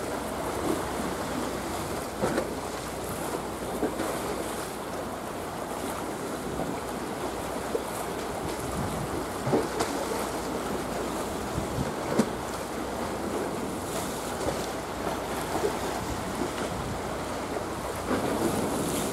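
Steady wind noise on the microphone mixed with the wash of small waves, with a few brief louder peaks.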